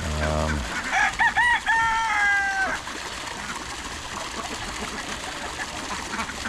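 A rooster crowing once, starting about a second in: a few short arched notes, then a long held note that sags at the end. A short, low, buzzy call comes just before it, at the very start.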